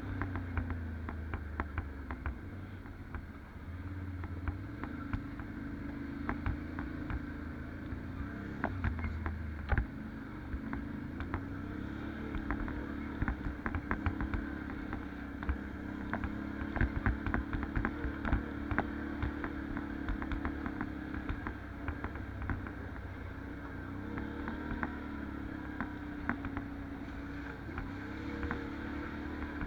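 Can-Am 570 ATV's V-twin engine running under a changing throttle, its pitch rising and falling every few seconds, with frequent clicks and knocks from the machine over rough trail.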